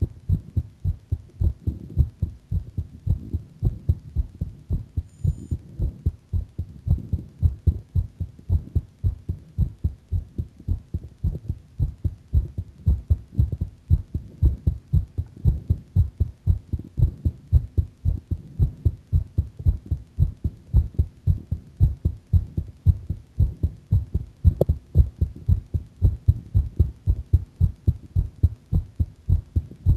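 A girl's heart beating a bit fast: a steady, even rhythm of low, dull thumps.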